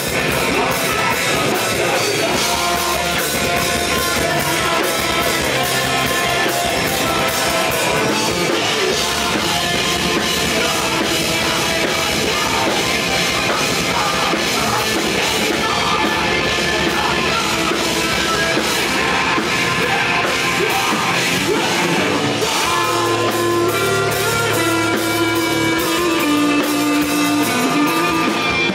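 A rock band playing live: electric guitar, bass guitar and drum kit, with a male singer.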